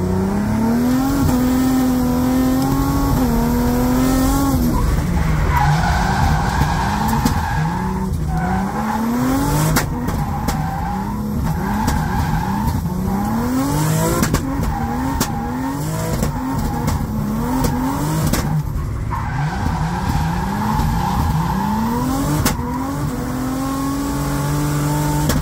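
Turbocharged BMW M50B30 straight-six in an E36 drift car, heard from inside the cabin, revving hard with its pitch rising and falling again and again as the car drifts. Tyres squeal twice, each time for a few seconds.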